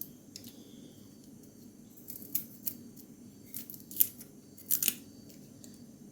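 About half a dozen short, sharp clicks and snips of kitchen handling, spaced irregularly, the loudest about four seconds in, over a faint steady hum.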